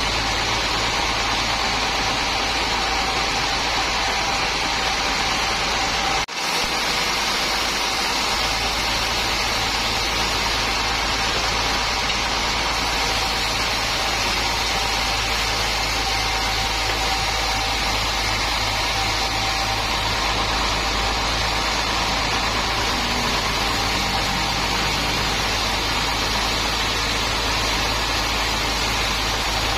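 Sawmill machinery running steadily, an unbroken mechanical drone with a low hum. The sound briefly cuts out about six seconds in.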